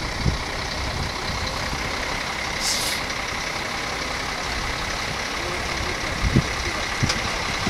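Heavy diesel fire engines idling steadily, with a short hiss of compressed air from a truck's air brakes about three seconds in and a couple of dull knocks near the end.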